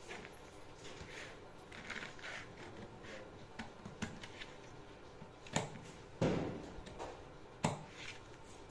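Scissors cutting a paper pattern, with paper rustling and light clicks, and a few sharper knocks of tools on the table in the second half.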